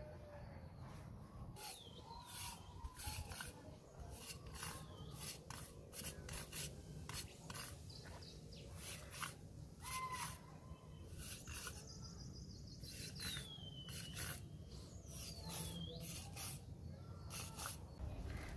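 Hand float scraping over fresh cement plaster on a brick wall in repeated short strokes, a rasping rub with each pass as the render is smoothed.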